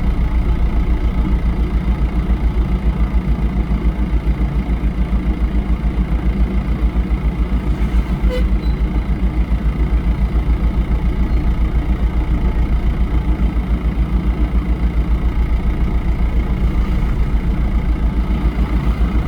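Engine of road-construction machinery running steadily, with a fast, even low throb.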